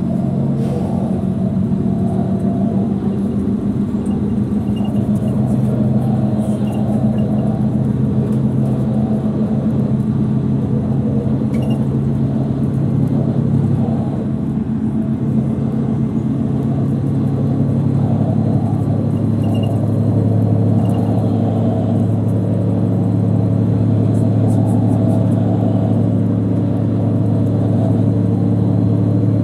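Mercedes-Benz Citaro C2 city bus at motorway speed, heard inside the passenger cabin: a steady engine drone over road and tyre rumble, growing a little louder in the second half.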